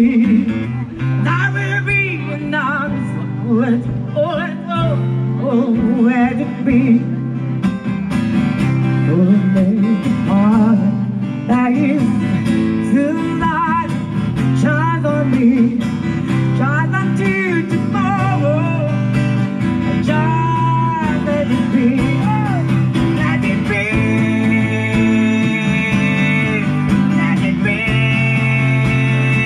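Live acoustic music led by acoustic guitar, with a bending melodic line over the chords and some long held notes near the end.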